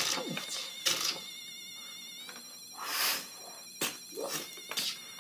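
A high, warbling electronic tone that trills like a ringing telephone, with short sharp hit sounds and a whoosh about three seconds in laid over it as action figures are played fighting.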